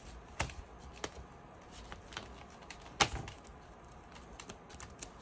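Hands handling a thick, stuffed book of cash envelopes while stretching an elastic band around it to hold it shut: a few light clicks and taps, the loudest about three seconds in.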